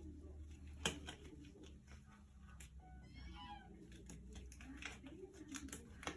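A single brief animal call, rising then falling in pitch, about three seconds in, amid scattered light clicks and taps; the loudest tap comes a little under a second in.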